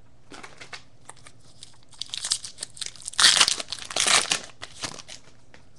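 A baseball card pack's wrapper crinkling and tearing as it is ripped open by hand, after a few light clicks of cards being set down; the crinkling comes in bunches and is loudest a little past the middle.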